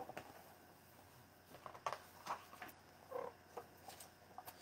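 Faint, scattered rustles and light taps of a picture book's paper pages being handled and turned.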